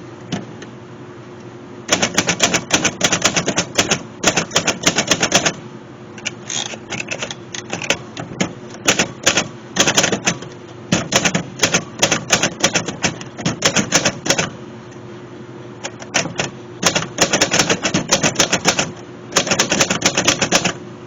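Manual portable typewriter, a Royal Senior Companion, being typed on: fast runs of key strikes a few seconds long, separated by short pauses, over a faint steady hum.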